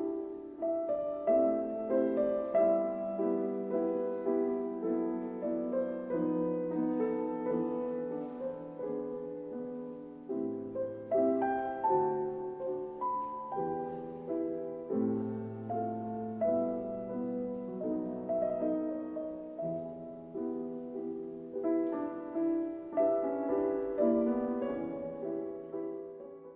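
Gentle piano music: a slow melody over chords, each note struck and fading, dying away at the very end.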